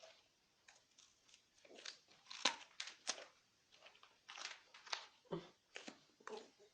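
Faint crunching bites and chewing, a person eating a raw carrot: a run of short, sharp crunches, thickest about two to five seconds in.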